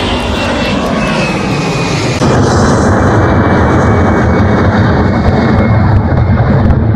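Airbus A380's four turbofan engines roaring at takeoff power during a steep climb, with a high whine falling in pitch as the jet passes. About two seconds in, the roar gets louder and deeper.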